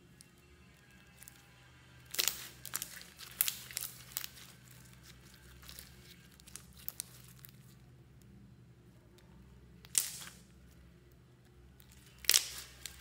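Foam-bead slime being pressed and squeezed by hand, giving short, sharp pops and crackles as beads and trapped air give way: a quick run of them from about two seconds in, then single loud pops near ten seconds and near the end, with quiet kneading between.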